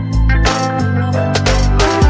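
Background music with deep, sustained bass notes under a steady drum beat.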